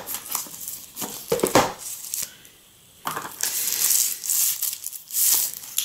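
Crinkling and rustling of a thin plastic sleeve and handling of a cardboard phone box as a smartphone is lifted out, in irregular bursts with a short lull about two seconds in.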